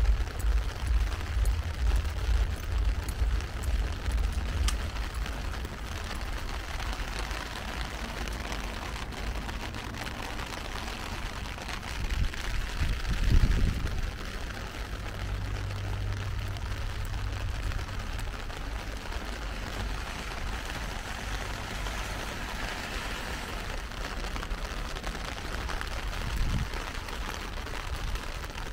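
Heavy rain falling steadily, an even hiss of drops throughout. Low uneven rumbling comes in the first few seconds, and a low rumble swells and fades about thirteen seconds in.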